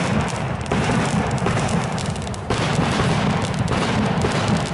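Ground fountain firework burning, a dense crackling and hissing spray of sparks. The sound jumps abruptly in level twice.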